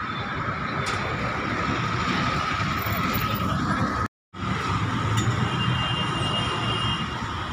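Steady street traffic noise with a continuous high hum and low rumble. The sound cuts out for a moment about four seconds in.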